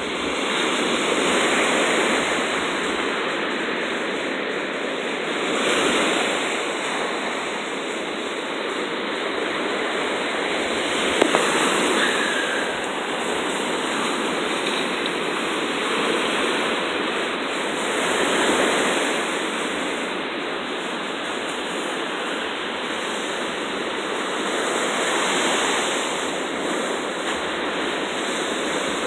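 Ocean surf breaking and washing up the beach, a steady rush of water that swells and eases every several seconds as each wave comes in. There is one brief click about eleven seconds in.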